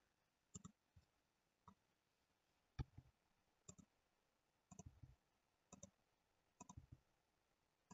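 Faint computer mouse clicks, about eight, several in quick double clicks, spread over near silence.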